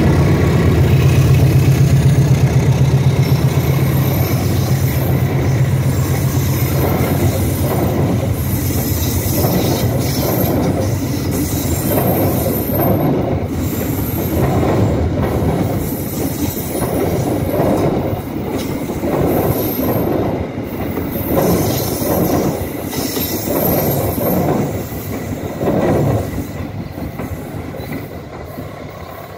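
A CC 206 diesel-electric locomotive passes close by with its engine running. A rake of passenger coaches follows, clattering past with a wheel clack about once a second over the rail joints and a thin high wheel squeal. The sound fades as the last coach goes by.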